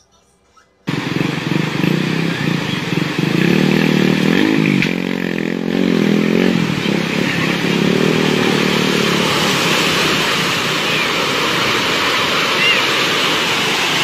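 Rushing floodwater from a surging muddy wave: a loud, steady noise that starts suddenly about a second in. A person's voice rises over it briefly around five seconds in.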